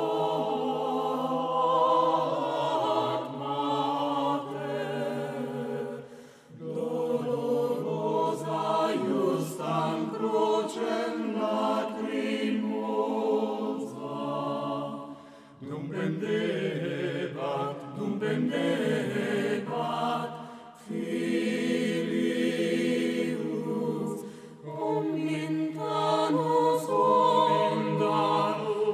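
A choir singing a chant in long sung phrases, with short pauses between them.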